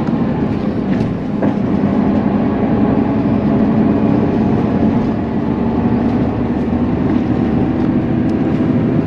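Steady engine and road rumble inside a moving bus.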